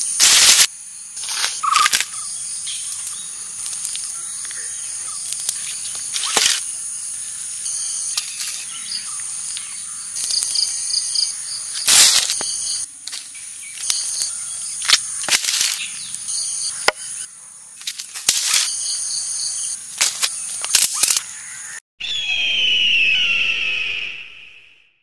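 Steady high chirring of insects in woodland, broken by sharp crunches and crackles of footsteps on dry fallen leaves. Near the end a short sweeping sound effect plays over the title card and fades out.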